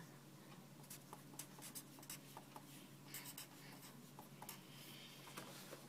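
Felt-tip marker writing on paper: faint short scratchy strokes as letters and symbols are drawn.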